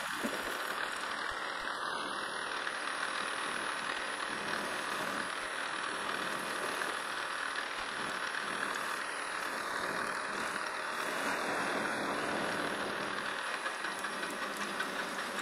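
PM-1127 metal lathe running while a turning tool cuts a cone point on a spinning steel part. A steady hiss of the cut over the machine's running noise, as the tool is fed slowly across the taper.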